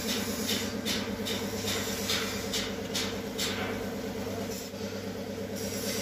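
Truck engine idling steadily with a pulsing hum, overlaid by scattered short clicks and hisses.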